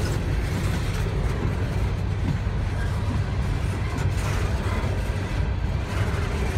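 Empty Norfolk Southern coal cars rolling past on steel wheels: a steady low rumble of wheels on the rails.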